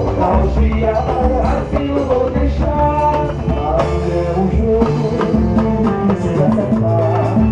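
Live band music: drums and a strong bass line under melodic instruments, keeping a steady beat.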